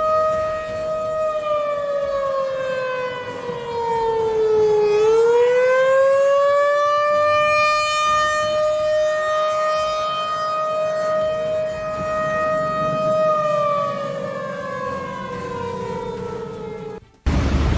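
Outdoor warning siren sounding two tones together. The pitch winds down over a few seconds, climbs back and holds steady, then falls again before the sound cuts off suddenly near the end.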